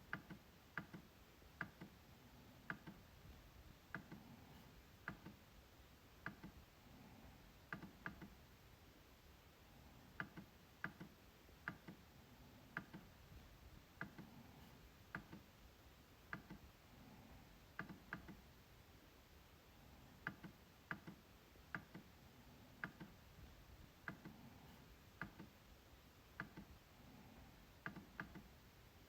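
MacBook trackpad clicking, irregularly, about one or two clicks a second, some in quick pairs.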